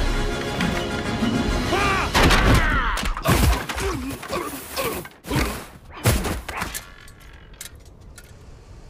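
Dramatic cartoon soundtrack music with fight sound effects: several heavy hits and thuds between about three and six seconds in, after which the sound drops away to a low hum.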